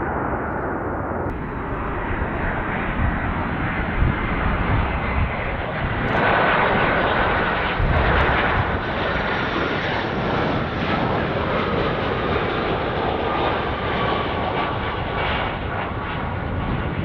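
Jet engines of a Boeing 757-200 airliner on final approach and landing: a steady rushing noise with a faint whine that slowly drops in pitch, swelling briefly about six seconds in.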